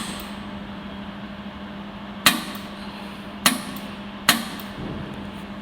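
Three sharp snaps from a 200 W pulsed YAG jewelry laser welder firing single pulses, about a second apart, over a steady low hum.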